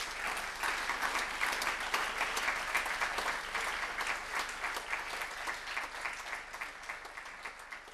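A seated audience in a lecture hall applauding: dense, steady clapping from many hands that begins to taper off near the end.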